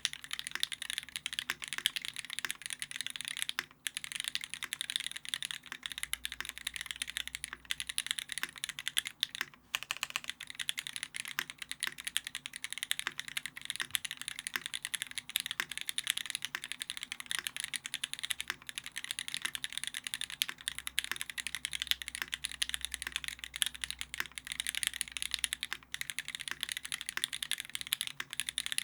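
Continuous typing on a Keycult No.2 rev.1 custom mechanical keyboard with a brass plate, lubed and filmed vintage Cherry MX Black linear switches, and GMK keycaps: a dense, steady run of keystroke clacks, with brief pauses about 4 and 10 seconds in.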